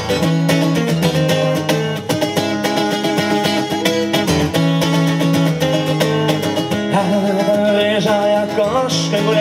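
Steel-string acoustic guitar strummed in a fast, steady rhythm: an instrumental break in the song.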